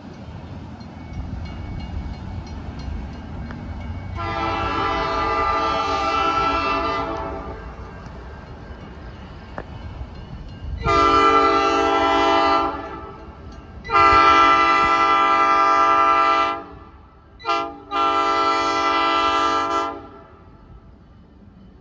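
Air horn of Hobo Railroad diesel locomotive 958 as it approaches, sounding for the road crossing: four long blasts with a brief toot just before the last. The later blasts are louder as the train nears, over a low rumble.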